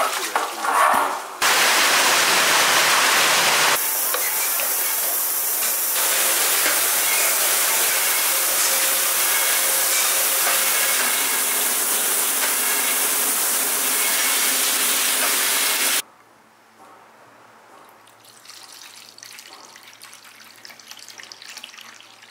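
Makgeolli brewery production noise: a loud steady rushing hiss like spraying water that cuts off sharply about sixteen seconds in. Near the end comes a quieter splashing as makgeolli is poured into a small metal bowl.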